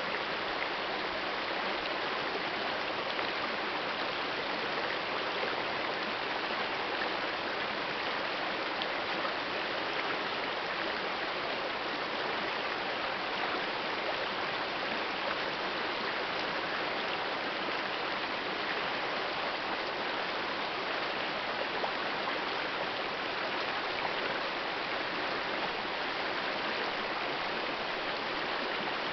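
Shallow river running over rocks and boulders in small riffles: a steady, unbroken rushing of water.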